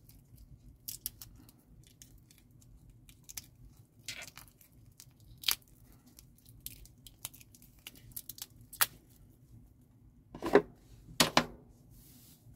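Protective plastic film being peeled off a wristwatch, with faint crinkles and small clicks scattered through. Near the end come two louder knocks as the metal watch case is set down on the table.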